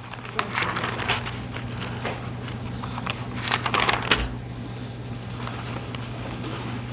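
Thin Bible pages being leafed through and turned, a quick run of crackly page flips and rustling that thins out after about four seconds. A steady low hum runs underneath.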